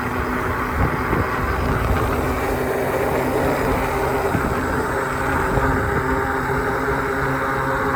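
Steady city street traffic with a vehicle engine's hum and a low rumble underneath, heard from a moving bicycle.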